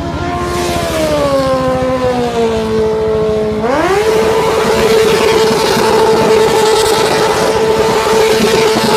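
Stretched sportbike's engine revving hard during a burnout. Its note sinks slowly over the first few seconds, then climbs sharply about four seconds in and holds steady at high revs, over the hiss of the spinning rear tyre.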